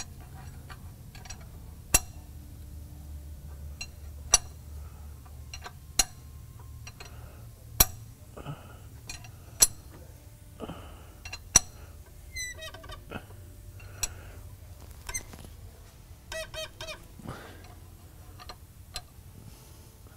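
Sharp metallic clicks about every two seconds as a 7/8 wrench tightens a brass bung into a fuel pump. Over a faint low hum, with a few short high warbling calls in the background in the second half.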